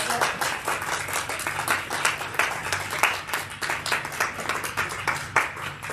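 Audience applauding with dense, irregular clapping that thins out and dies away near the end.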